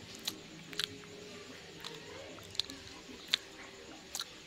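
Close-up chewing of a soft, sticky layered rice cake (sapin-sapin), with a handful of wet mouth clicks and smacks spread through it.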